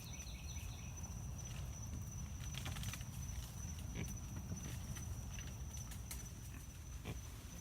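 Footsteps and rustling in dense brush, with scattered snaps and crackles, over a steady high-pitched drone of night insects and a constant low rumble.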